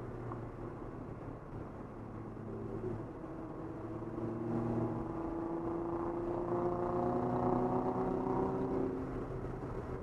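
Nissan 300ZX (Z32) twin-turbo V6 engine heard from inside the cabin while driving, running steadily at first, then pulling with rising pitch and growing louder from about four seconds in before easing off near the end.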